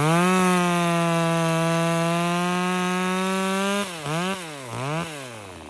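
Small Workfix mini chainsaw revved up and held at high speed for about four seconds, then blipped twice and let drop back toward idle.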